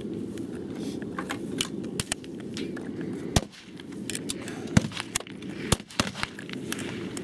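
A run of short, sharp metallic clicks and knocks from handling the rifle and its magazines, with three louder knocks about a second apart in the second half, over a steady low rumble.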